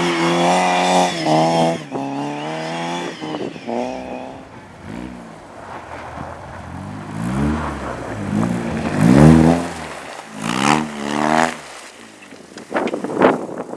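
Car engine on a race track held at high revs, then revved up again and again in rising sweeps as it accelerates, with tyres squealing. A couple of sharp bangs near the end.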